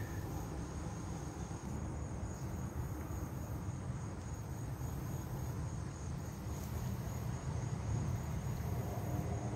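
Crickets chirring steadily in a high, thin even tone over a low, steady background rumble.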